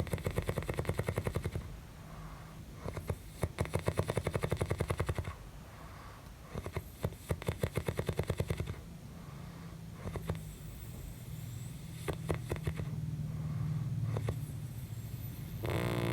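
A sleeping person snoring with an unusual fast rattle, each breath a rapid run of clicks lasting about two seconds. Three strong rattling snores come about three seconds apart, followed by weaker, shorter ones.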